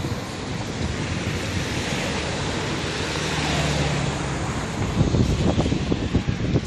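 Sea surf rushing steadily on the shore, with gusts of wind buffeting the microphone from about five seconds in.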